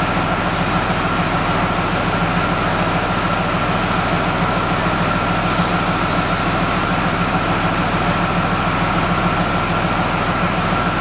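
Leopard 2A4 (Strv 121) tank's MTU V12 twin-turbo diesel engine running steadily at idle, with a steady high whine above the low engine note.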